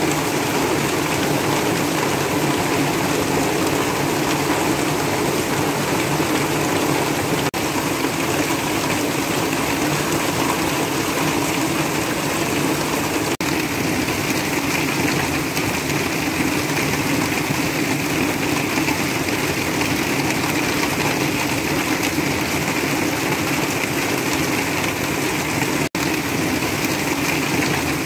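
Heavy rain drumming steadily on a tin roof, with rainwater pouring off the roof edge. The hiss turns a little brighter about halfway through.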